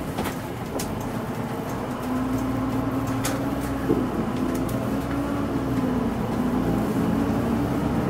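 Inside a Mitsubishi Aerostar one-step city bus: the diesel engine runs with a steady hum that grows louder about two seconds in. Scattered clicks and rattles sound from the cabin.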